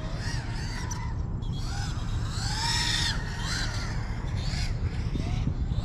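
Crows cawing, a quick series of harsh caws, the loudest a little under halfway through, over a steady low wind rumble.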